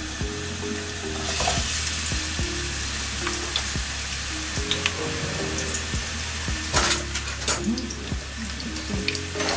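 Chopped onion and a Scotch bonnet chili sizzling in hot olive oil in a nonstick wok. The sizzle picks up about a second in and flares louder twice about two-thirds of the way through.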